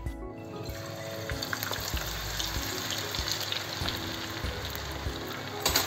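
Sliced onions coated in cornflour deep-frying in hot oil: a steady crackling sizzle that starts about half a second in, with a louder burst of crackling near the end.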